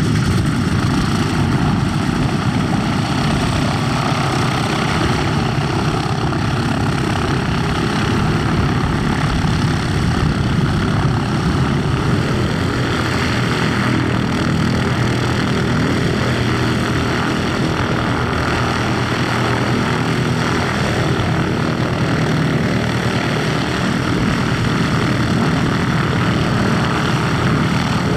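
Aircraft radial engine idling on the ground just after start-up, a steady loud propeller-driven engine note that holds even throughout.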